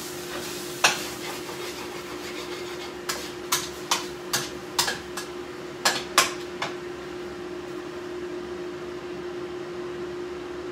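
Utensils clinking and knocking against pots and dishes: one sharp click about a second in, then about a dozen between three and seven seconds in, over a steady hum.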